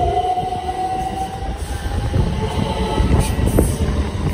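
c2c electric train pulling away along the platform. The whine of its electric traction motors rises slowly in pitch as it accelerates and fades out after about a second and a half. Its wheels then rumble more heavily, with a few sharp clicks near the end as the carriages pass.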